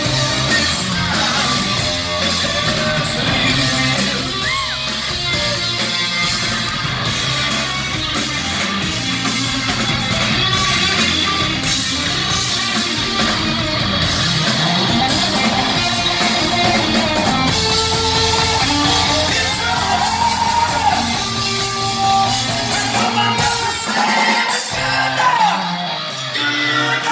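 Live rock band playing loud: electric guitars, bass and drums, with a singer's voice wailing over them. Near the end the low end drops away, leaving a thinner sound.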